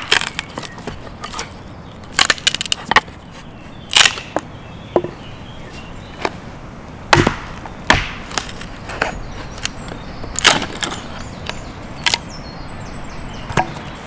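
Hatchet chopping into a half-damp, mouldy piece of wood on a tree stump, cutting away the mouldy part and splitting it. Sharp, irregular knocks and cracks, some in quick clusters, others a second or more apart.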